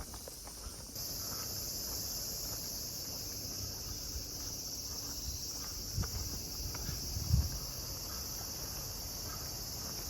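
Steady, high-pitched chorus of summer insects, which gets louder about a second in and then holds, with a few soft footstep thumps on the road underneath.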